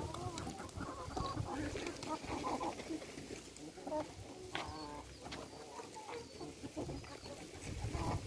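Domestic hens clucking in many short calls as the flock feeds, with scattered light taps.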